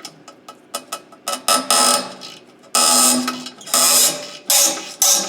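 Light rapid clicking, then five short, loud mechanical bursts of about half a second each, each with a buzzing tone, from a tool being worked on the exhaust.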